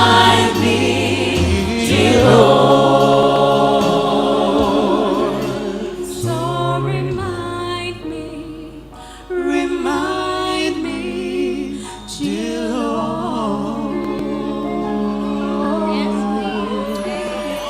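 Voices singing together in the slow closing phrases of a gospel song, with long held notes.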